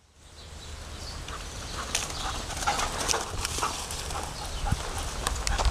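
Running footfalls swishing through long grass, with wind rumbling on the microphone and a few short high sounds in between.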